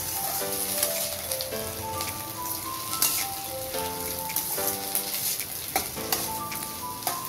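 Chopped onions, garlic, ginger and green chillies sizzling as they sauté in oil in a stainless-steel kadai. A metal slotted spatula stirs them and clicks and scrapes against the pan now and then. Light background music, a simple melody of short notes, plays under the sizzle.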